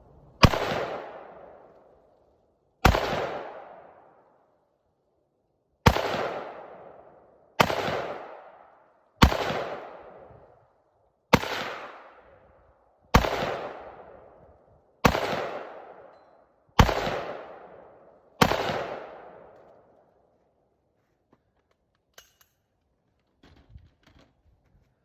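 Rifle fired ten times from a seated position, one shot every two seconds or so, each sharp crack trailing off in a long echo. A few faint clicks follow near the end.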